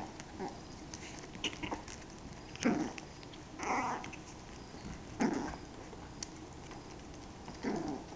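Yorkshire terrier puppies at play, giving about four short yips and growls a couple of seconds apart, with small clicks of claws on the wooden floor.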